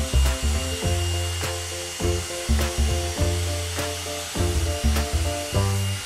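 Background music with a steady beat, about one or two beats a second, over a deep bass line.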